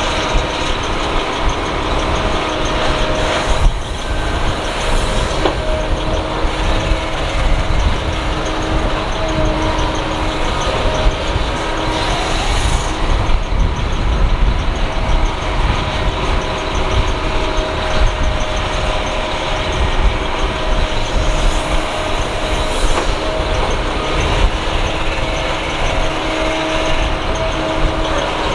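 Kobelco SK200 hydraulic excavator working, its diesel engine running steadily under load with a steady whine over a low rumble.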